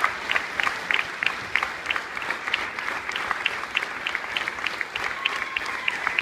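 Audience applauding, a dense, steady clapping with individual claps standing out.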